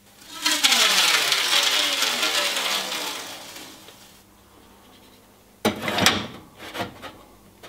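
A loud whoosh with a falling, hollow-sounding sweep for about three and a half seconds. Then a metal paint can is set down on a shelf with a couple of clunks about six seconds in, followed by a few lighter knocks.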